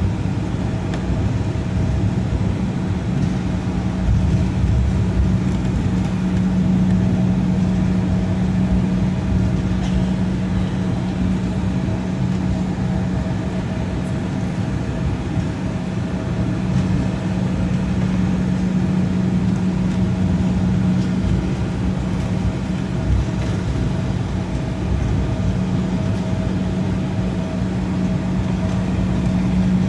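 Cabin noise of an Embraer E175 regional jet taxiing: a steady hum from its GE CF34 turbofans at taxi power over a low rumble, with a fainter constant tone above.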